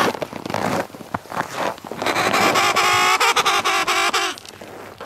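Emperor penguins calling. A long call with a wavering pitch ends within the first second. After a gap with a few soft scuffs, a second call of about two seconds follows.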